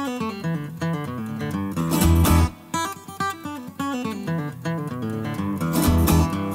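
Music played on a plucked acoustic guitar: a run of single notes, with deep low notes sounding about two seconds in and again near the end.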